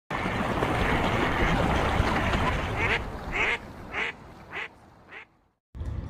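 A loud, even rushing noise for about three seconds, then a duck quacking five times, roughly two quacks a second, each fainter than the last.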